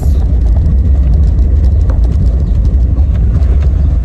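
Car interior noise while driving: a steady low rumble from the engine and the road, heard inside the cabin.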